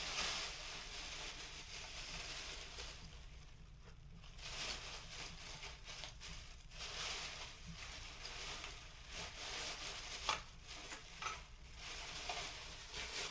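Continuous rustling and crinkling of Christmas decorations and artificial tree branches being handled, with a few sharp clicks and knocks.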